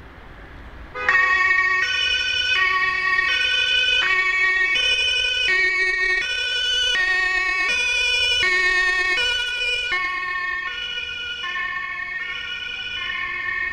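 German two-tone emergency siren (Martinshorn) on an ambulance van. It comes on suddenly about a second in and alternates steadily between its two notes, changing about every two-thirds of a second. Towards the end both notes drop a little in pitch and the siren gets quieter as the van drives past.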